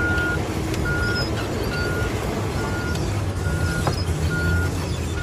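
Komatsu D475A crawler bulldozer's backup alarm beeping, one steady beep a little under every second, over the low, steady rumble of its diesel engine; the alarm is the sign that the dozer is in reverse.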